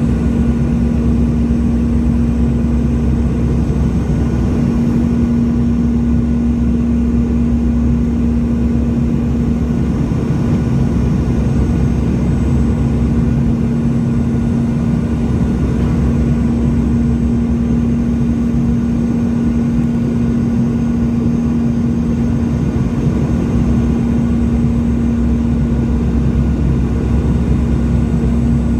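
Cabin noise of a Boeing 717-200 heard from a window seat beside its rear-mounted Rolls-Royce BR715 turbofan, on approach to land: a steady engine roar with a constant low hum running through it.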